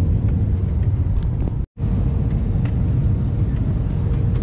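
Passenger airliner cabin noise: a steady low engine rumble with a constant hum and a few small clicks. The sound cuts out completely for an instant about a second and a half in.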